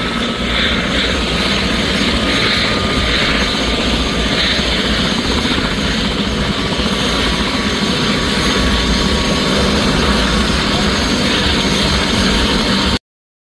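Single-engine turbine helicopter running on the ground with its main rotor turning: a steady turbine whine over the rotor's wash, with a rhythmic blade swish pulsing about every 0.7 s over the first few seconds. The sound cuts off abruptly near the end.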